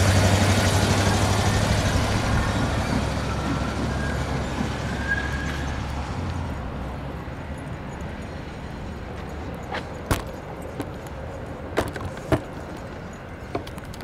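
Amtrak passenger train passing and moving away: a low drone and the rumble of the train on the rails fade steadily over the first six seconds. A few sharp clicks follow, about ten to twelve seconds in.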